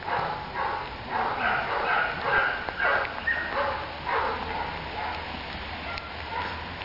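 Dog whining in short, high-pitched calls, two or three a second, while gripping a bite sleeve; the calls thin out after about four seconds.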